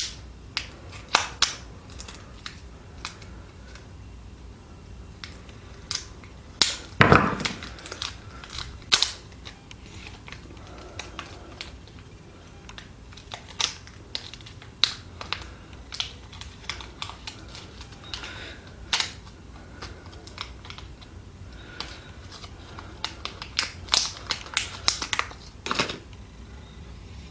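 Plastic packaging of a DCC decoder chip being worked open: irregular crackles, clicks and snaps, the loudest about seven and nine seconds in.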